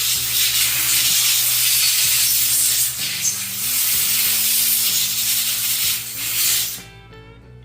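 Compressed air blowing debris out of a chainsaw: a loud, steady hiss that cuts off suddenly near the end.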